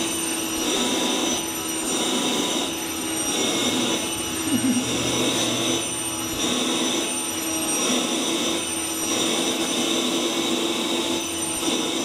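Vacuum cleaner running with its wand nozzle being drawn over a cat's fur; a steady motor whine and a rush of suction that swells and eases about once a second as the nozzle moves.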